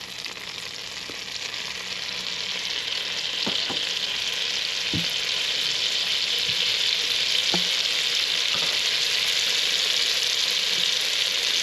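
Melted butter, brown sugar and honey sizzling in a pot on the heat, a steady hiss that grows louder. A few light knocks of a utensil against the pot.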